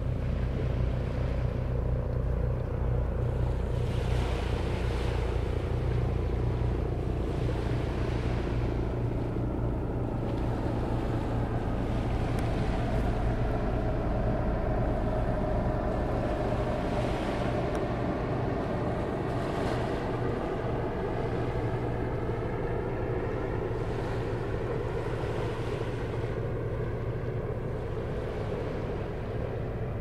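A boat engine humming steadily, its pitch drifting slowly through the middle as it passes, over small waves that wash in every few seconds.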